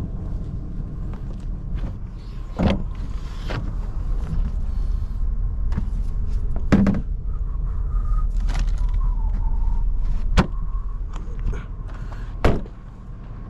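Several knocks and clunks of gear being handled in and around a pickup truck, over a steady low rumble. The last and sharpest knock comes near the end, after which the rumble drops away.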